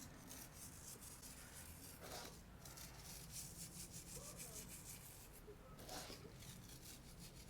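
Faint rubbing and scratching of salt being spread over a raw eye of round beef roast for a dry brine.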